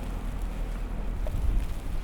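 Strong wind buffeting the microphone in a snowstorm: a steady low rumble, with a gust swelling briefly about one and a half seconds in.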